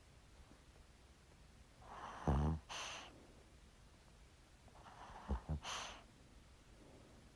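Small dog snoring: two slow breaths, about three seconds apart. Each is a rough, low, pitched snore followed by a shorter breathy, hissing puff, and the second breath starts with two quick little snorts.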